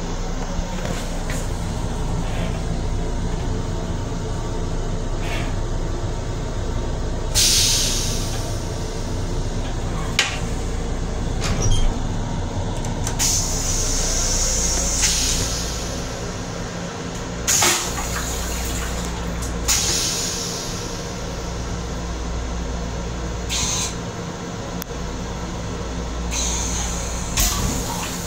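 Stainless-steel toilet in an M7 commuter railcar's restroom flushing, with several hissing spurts of water rinsing the bowl, the longest about halfway through. Under it runs the steady rumble of the moving train.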